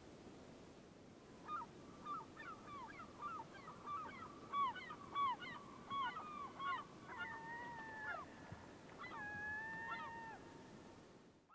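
Several birds calling, a quick overlapping series of short calls that each drop in pitch from about a second and a half in, then a few longer held calls near the end.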